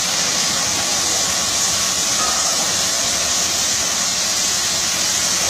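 High-pressure water jets of an automatic car wash machine spraying a car: a steady hiss of spray.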